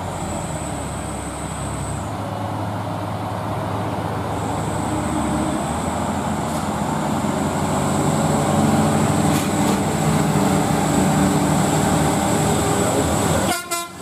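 Loaded Mitsubishi Canter dump truck's diesel engine labouring up a steep hill, growing louder as it nears, with a thin high whistle above the drone. The sound breaks off briefly just before the end.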